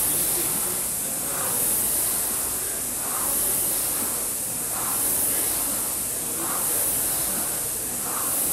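Air rowing machine's fan flywheel whooshing with each stroke, swelling and fading in a steady rhythm about once every 1.7 seconds.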